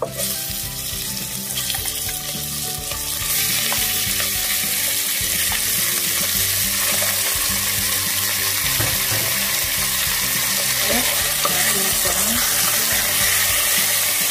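Beef chunks sizzling in hot oil in a pressure cooker pot on high heat as they are browned and stirred with a wooden spatula. The sizzle starts suddenly as the meat goes in, grows louder about three seconds in, then holds steady.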